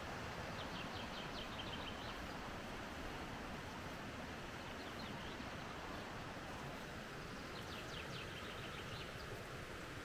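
A songbird sings two short songs of quick high notes, one about a second in and one near the end, over a steady rushing background noise.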